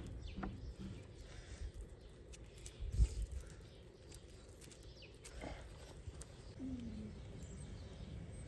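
Wooden poles being handled and lashed together with twine: a single knock about three seconds in and a few small clicks, over a low outdoor rumble with faint bird chirps.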